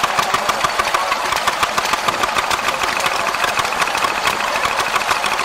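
Vintage single-cylinder stationary engine with twin flywheels running steadily, driving a flat belt, with a rapid, even mechanical clatter.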